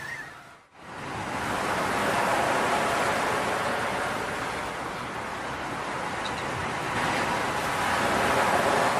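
Ocean surf, a steady rush of waves washing in that slowly swells and eases, starting about a second in after a brief break in the sound.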